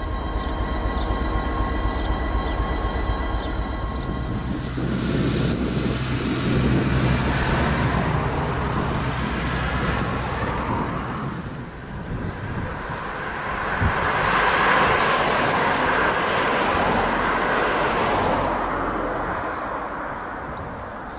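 An M62-type diesel locomotive hauling a freight train past. At first there is a steady low engine drone, which gives way to a broad rushing rumble that swells, dips briefly about halfway, swells again and then eases off near the end.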